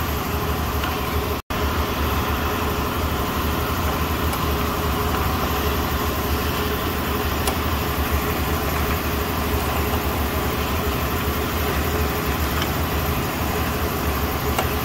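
Steady low mechanical drone of running workshop machinery. The drone cuts out for an instant about a second and a half in.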